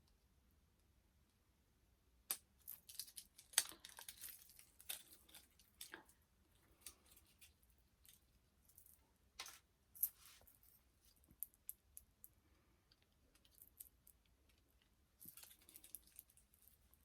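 Faint, scattered rustling, crinkling and small sharp clicks of hands handling a toy doll.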